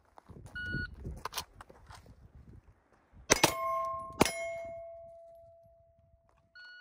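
Two pistol shots about a second apart, each followed by a clear metallic ring dying away over a couple of seconds: a steel target being hit. A short electronic beep sounds about half a second in and again at the end.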